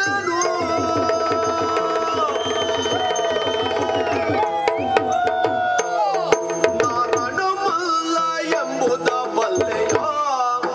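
Yakshagana accompaniment music: a maddale barrel drum plays a rhythm of sharp strokes over a steady drone. Long held melodic notes sound in the first half and fall away about four and a half seconds in.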